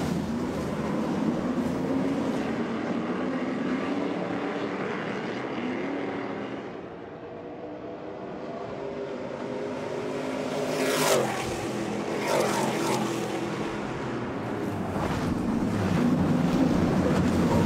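Stadium Super Trucks' V8 engines racing, their pitch rising and falling as the drivers work through the revs. The sound fades for a few seconds, then a truck passes close with a sharp, loud sweep down in pitch, a second follows a moment later, and the engines grow loud again near the end.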